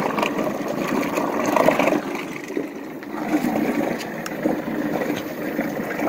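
30 lb MotorGuide electric trolling motor running steadily at a high speed setting while submerged in a bucket of water, its propeller churning the water under full load at about 14.5 amps.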